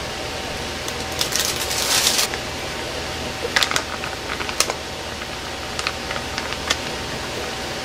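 Hands putting together a ramen salad in a bowl: about a second of crinkly rustling, then scattered light clicks and taps, over a steady hiss with a faint hum.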